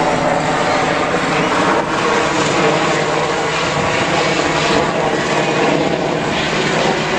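Military helicopter's turbine engine and rotor running loudly and steadily, close by.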